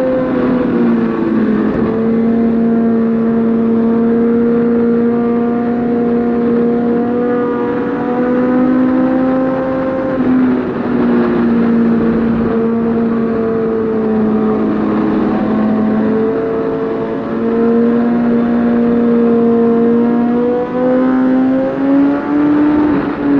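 Suzuki GSX-R1000 sportbike's inline-four engine running at speed under steady throttle, its note holding nearly one pitch. The note dips about a second and a half in and climbs again near the end.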